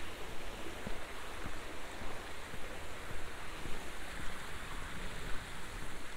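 Footsteps walking at an even pace on a paved path, faint regular steps about twice a second, over a steady rushing outdoor noise.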